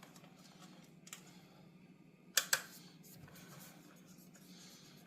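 Light clicks and handling of a screwdriver taking screws out of the plastic back housing of a car radio display unit, with two sharp clicks in quick succession about halfway through, over a steady low hum.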